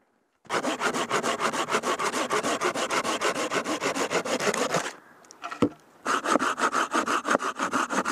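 Hand folding pruning saw cutting through a dead log in quick back-and-forth strokes, each stroke a rasping rip. The sawing starts about half a second in, breaks off for about a second with a single knock about five and a half seconds in, then resumes.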